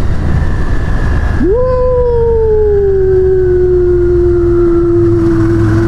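A man's long, loud howl, a held 'woooo', over the steady rumble of a motorcycle and wind. It swoops up in pitch about a second and a half in, then sinks slowly and holds.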